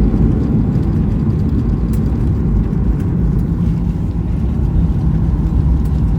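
Boeing airliner's cabin noise after a soft landing: a steady low rumble from the engines and the wheels on the runway.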